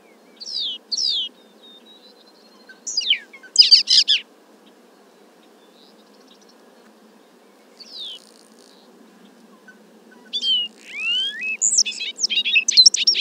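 Bobolink singing, picked up from about 340 feet away through a parabolic microphone. It sings several short bursts of quick, high notes sweeping up and down, with a longer jumbled phrase near the end, over a faint steady background hiss.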